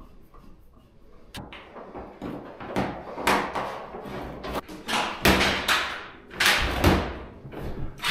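Handling noise of an electrical cable being pulled and pressed along a ceiling board: a sharp click about a second and a half in, then a run of irregular scraping and rustling strokes that grow louder towards the end.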